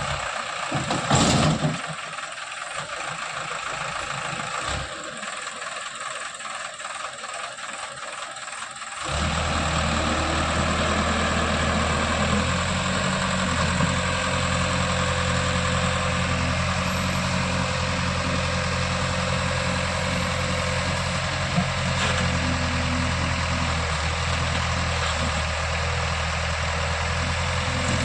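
JCB 3DX backhoe loader's diesel engine running steadily. For the first nine seconds it sounds thin, with no low end and a brief louder noise about a second in. Then the engine's full, steady low rumble comes in.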